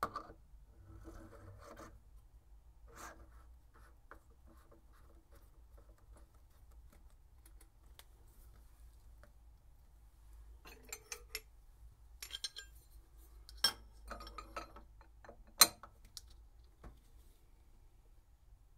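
Quiet handling sounds as a metal tramming tool is slid into a milling machine's spindle collet. These are followed in the second half by metal clicks and clinks of an open-end wrench on the collet nut, with a couple of sharp clicks among them.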